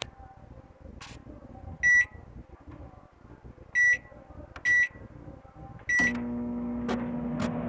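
Midea MTA E21 microwave oven's keypad beeping four times as it is set, then a click and the oven starting up about six seconds in, running with a steady hum and deepening slightly near the end. It runs normally, the burnt board that caused its noise having been removed.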